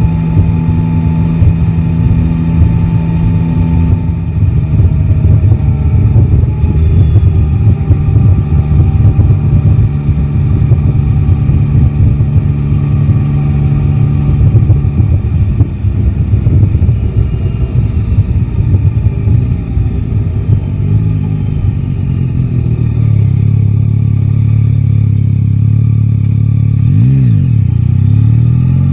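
Yamaha Tracer 9 GT's 890 cc inline-three engine running under a rider in city traffic. It holds steady at first and pulls under throttle, then settles to a steadier lower note. Near the end there is a quick rev up and down, then it rises again as the bike accelerates.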